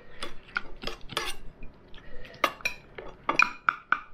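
Steel knife and fork clinking and scraping against a ceramic plate while lifting cooked fish off the bone: a dozen or so irregular, sharp clinks with a short ring.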